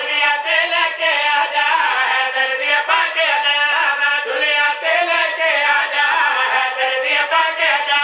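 Men's voices singing a Punjabi devotional praise chant (qasida) into microphones, carrying on without a break.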